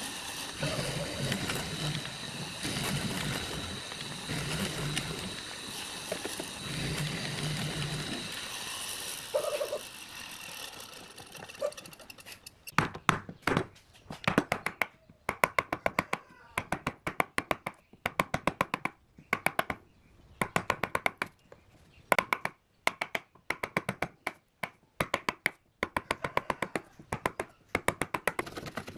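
A hollow-chisel mortiser runs steadily for about ten seconds, its motor hum under the noise of the chisel bit boring into pine. Then, from a little before halfway, a hand chisel cuts into the pine: quick clusters of sharp, short cuts.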